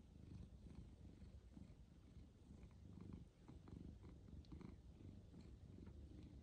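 Domestic ginger tabby cat purring softly, a low pulsing rumble, as it is scratched under the chin: a contented purr.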